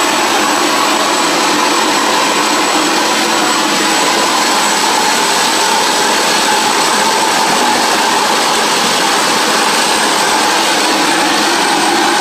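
Homemade gas turbine running steadily: a loud, even jet rush with a thin, high, steady whistle on top.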